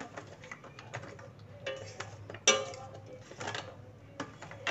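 Steel ladle stirring milky rice pudding in a stainless-steel pot, knocking and scraping against the pot in irregular clinks. The loudest clink, about two and a half seconds in, rings briefly.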